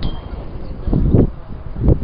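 Wind buffeting the microphone: a low rumble that swells into stronger gusts about a second in and again just before the end.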